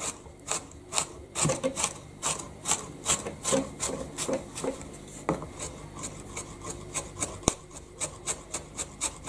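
Kitchen knife chopping ginger on a plastic cutting board: a steady run of quick strokes, a few a second, each a short tap and scrape of the blade on the board.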